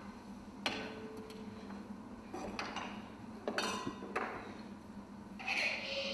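Sparse clinks and knocks of struck hard objects, a handful in all, several ringing on briefly at one pitch; the last, near the end, rings longest.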